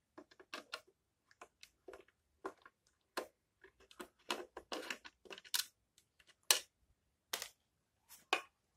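Irregular clicks, scrapes and a few sharper knocks of a plastic d.light solar lantern housing being handled and unscrewed with a thin screwdriver.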